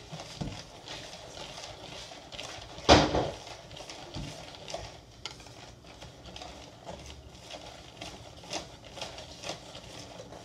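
Kitchen clatter of dishes and utensils being handled, a string of light knocks and clicks with one loud clank about three seconds in.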